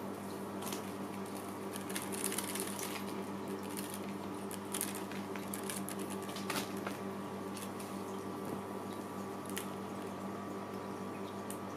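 Scattered light taps and scuffs of cats pouncing and landing on a hard floor, over a steady low hum.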